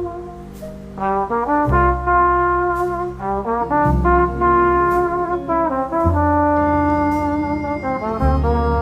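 Background music led by brass (trombone and trumpet) playing a bouncy melody of short held notes over a bass line.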